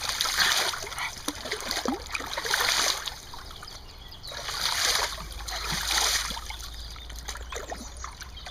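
Shallow river water splashing in several irregular bursts, over a steady trickle.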